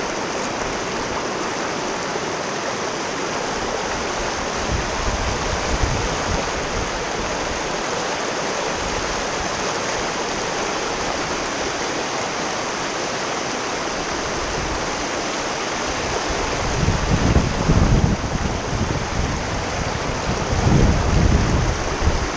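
Shallow river rapids rushing over rocks, a steady hiss of white water close to the microphone. Low rumbling gusts of wind buffet the microphone a few times, most strongly in the last few seconds.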